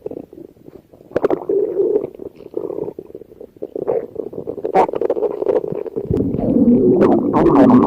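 Stomach growling: irregular gurgles and pops that are faint for about the first second, then build to a loud, wavering gurgle over the last two seconds.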